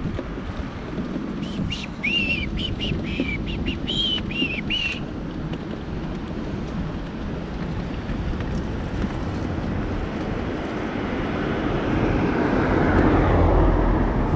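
A small bird calling a quick run of about nine short, high chirps a couple of seconds in, over a steady outdoor rumble of wind and traffic that swells toward the end.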